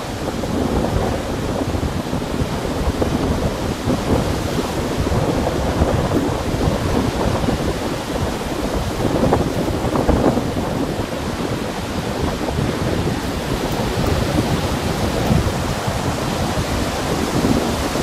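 Choppy lake waves breaking and washing over a rocky, pebbly shore, in a strong wind that buffets the microphone with low rumbling gusts.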